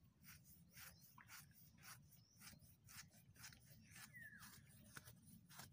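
Faint bird calls: a string of short, irregular chirps, with one short falling whistle about four seconds in.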